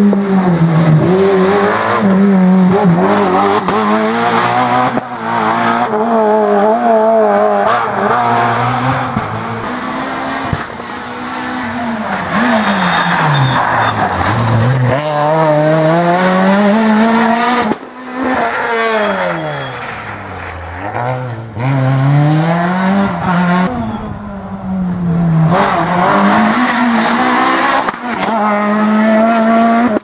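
Renault Clio R3 rally cars' two-litre four-cylinder engines driven hard on a special stage: high revs climbing in steps through quick gear changes, twice dropping low as the car slows for a corner and then rising again. Several passes are cut together.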